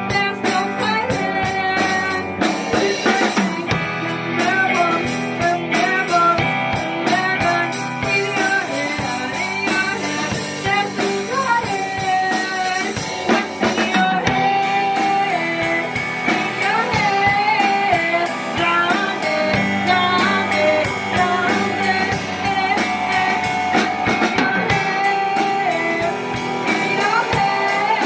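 Rock band playing live: two electric guitars and a drum kit, with a woman singing lead.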